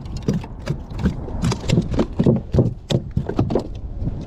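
Irregular knocks and thumps on a plastic kayak deck, several a second, as a freshly caught crappie is handled and flops against the hull.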